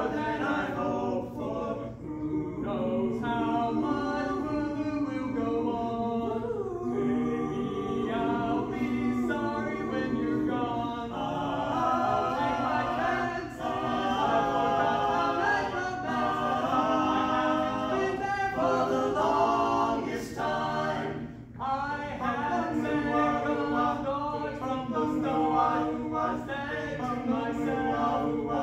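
Barbershop quartet of four male voices singing a cappella in close harmony, phrase after phrase, with a brief gap for breath about three-quarters of the way through.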